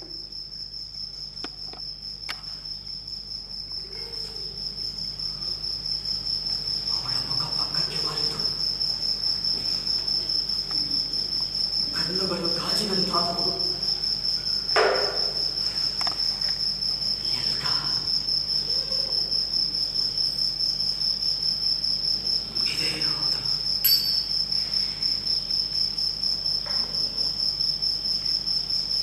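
Crickets chirping in a steady, fast, high trill that fades up over the first few seconds.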